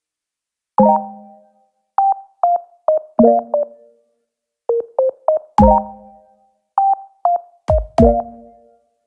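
Electronic background music: short, plucky synthesizer or keyboard notes in small clusters with brief silences between them, and a few deep kick-drum thuds in the second half.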